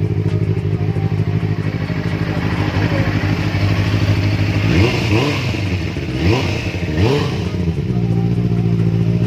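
Benelli BN600's 600cc DOHC inline four-cylinder engine idling through its twin under-seat mufflers. About halfway through, the throttle is blipped three times in quick succession, each rev rising and dropping back, and the engine then settles to a steady idle again.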